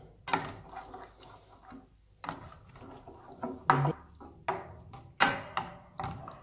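Wooden spoon stirring cream into sausage and mushrooms in a stainless steel frying pan, in irregular scraping and tapping strokes against the pan, the loudest about five seconds in.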